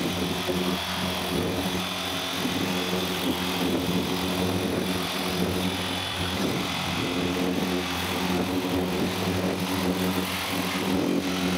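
Corded electric random-orbital (DA) sander running steadily against the bus's steel body panel: a constant motor whine under the hiss of the disc, sanding the old primer down toward bare metal.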